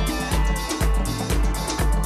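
Afro house dance music from a DJ set, with a steady kick drum at about two beats a second under sustained synth notes and hi-hats.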